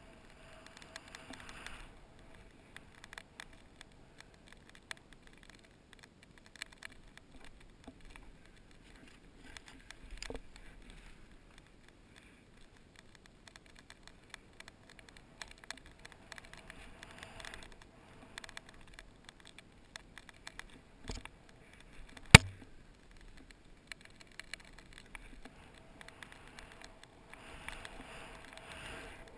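Snowboard riding through powder, the board hissing and scraping on the snow in swells as it turns, picked up by a body-mounted action camera, with scattered small clicks and one sharp knock about three-quarters of the way through.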